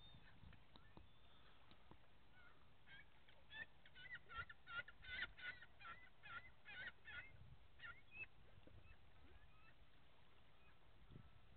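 Birds calling: a run of about a dozen faint calls, two or three a second, from about three seconds in until about eight seconds in, over a quiet background.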